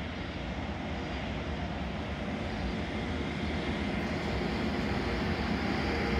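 Freight train hauled by an electric locomotive passing on a nearby track, a steady rumble of wheels and wagons that slowly grows louder.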